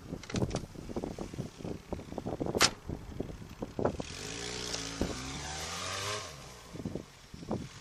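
Fiat Panda 4x4's engine revving as it drives over rough snow, with repeated knocks and clanks from the wheels and body and a sharp crack about two and a half seconds in. From about four seconds in the engine pitch rises and falls with a hiss of spinning tyres throwing snow.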